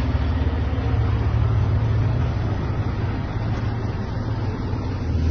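Vehicle engines running in a low, steady drone, the sound swelling near the end.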